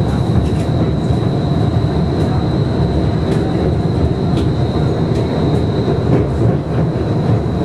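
Steady low rumble of a moving streetcar heard from inside the car, its wheels running on street track, with a thin steady high whine over it and a few faint clicks.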